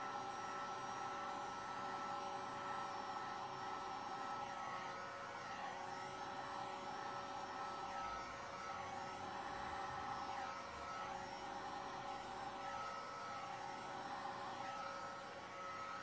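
Electric heat gun running steadily, its fan blowing a constant rush of air with a steady hum, as it is used to push wet epoxy resin into shape.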